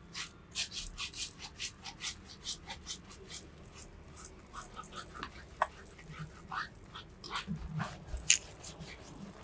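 Hands scrubbing a heavily lathered scalp during a shampoo: a dense, irregular crackle and squelch of shampoo foam, with a few short squeaks.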